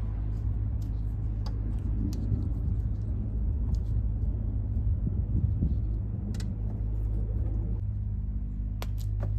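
Pickup truck engine idling steadily, a low even hum, with a few light clicks near the end.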